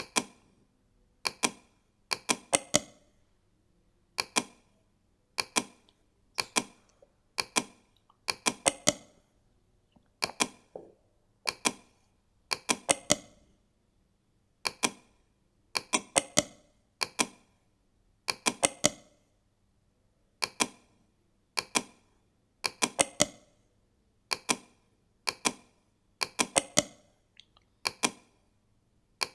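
Computer mouse buttons clicking in quick clusters of one to three clicks about once a second, as supports are placed one by one in 3D-printing support software.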